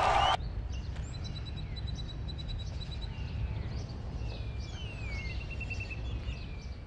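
Birds chirping over a steady low outdoor rumble: a quick run of repeated high chirps, then a few falling whistles and a short trill. Loud crowd noise cuts off abruptly at the very start.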